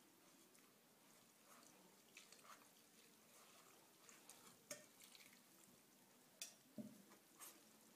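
Faint drips and trickling of warm water poured little by little from a saucepan onto grated carrots in a straining cloth. A hand rustles through the carrots, with a few soft clicks about halfway through and later.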